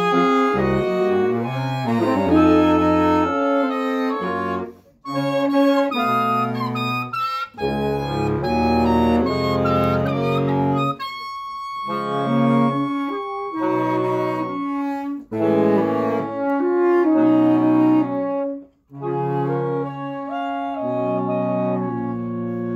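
Saxophone quartet playing in harmony, with a baritone saxophone carrying the low part. The phrases are separated by brief pauses.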